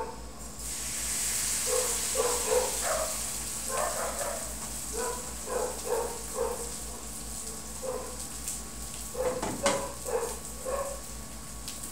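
Broa batter sizzling in hot oil in a frying pan, the sizzle starting just after the batter is ladled in. Over it a dog barks again and again in short yaps.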